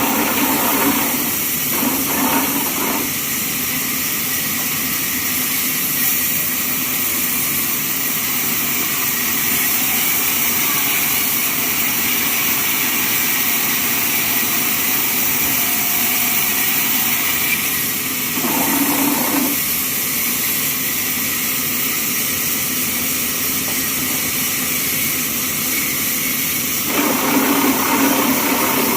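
Band sawmill running steadily with a high hiss, with a few short louder stretches: near the start, about two-thirds of the way in, and near the end.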